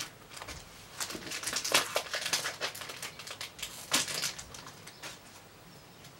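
Foil Pokémon booster pack wrapper being torn open by hand, crinkling in a few irregular short bursts that fade toward the end.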